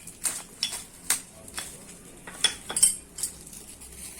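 Sharp metallic clinks and knocks of tools and brake parts being handled during a brake pad change, about ten at irregular spacing, the loudest about three seconds in.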